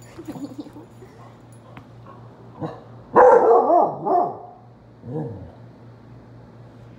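Basset hound barking in play: small grumbly sounds at the start, then a loud run of barks with wavering pitch about three seconds in, lasting over a second, and one shorter bark about five seconds in.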